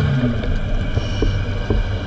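A motorboat's engine and propeller heard underwater as the boat speeds overhead: a steady drone with several held tones, dropping in pitch shortly after the start as the boat passes.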